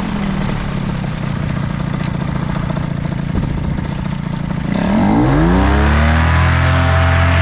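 Paramotor engine and propeller running hard during a running takeoff; about five seconds in the engine note climbs quickly and holds at a higher, louder pitch as the throttle opens to full power.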